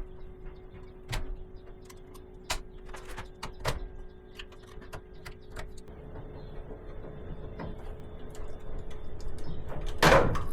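Heavy electrical service cable being cut by hand with a manual tool instead of a ratcheting cutter or grinder: irregular clicks and knocks, with scraping that builds in the second half and one louder knock near the end.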